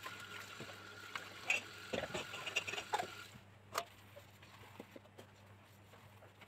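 Dishwashing at a stainless steel sink: tap water running over a bowl, with light clinks and knocks of metal pots and bowls. The running water stops about three seconds in, leaving soft scrubbing and a few small clicks.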